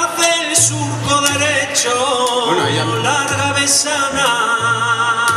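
Live folk band playing a Castilian folk song between verses: a wavering melody with long held notes over a bass line that steps between notes about every 0.7 seconds.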